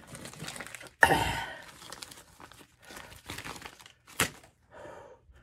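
Crinkling and rustling of packaging being handled, loudest in a sudden rustle about a second in, with a sharp tap a little after four seconds.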